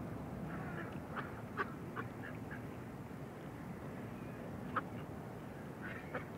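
Domestic ducks quacking: a run of short quacks in the first couple of seconds and a single sharper quack near 5 s, over steady low background noise.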